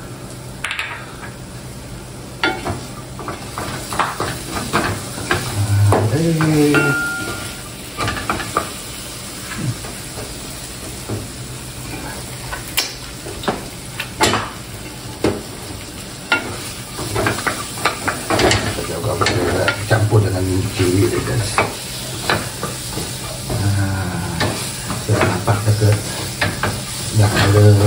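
A wooden spatula stirring and scraping a mix of tempoyak, pork crackling and chillies around a granite-coated wok, with sharp scrapes and knocks over a steady sizzle of frying.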